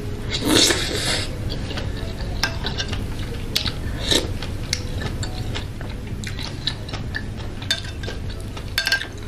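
Close-miked eating of soupy instant noodles: a loud slurp about half a second in, then chewing with scattered small clicks of a metal fork against a bowl, over a steady low hum.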